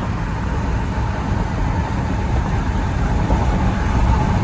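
Car on the move: steady low road and engine rumble.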